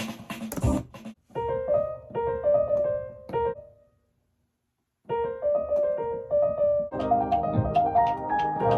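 Keyboard with a piano sound playing a short repeating phrase of quick notes. It stops dead for about a second midway, starts the phrase again, and a fuller part with low bass notes joins near the end.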